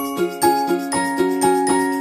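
Background music: a light, tinkling bell-like melody over a steady quick beat, about four beats a second.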